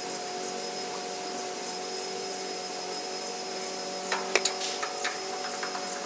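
A steady hum made of several fixed tones, with a short run of light clicks and knocks about four to five seconds in.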